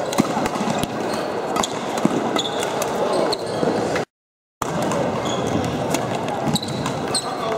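Badminton doubles rally: sharp racket strikes on the shuttlecock and shoe squeaks on the court floor over a steady murmur of voices in the hall. The sound drops out to silence for about half a second around four seconds in.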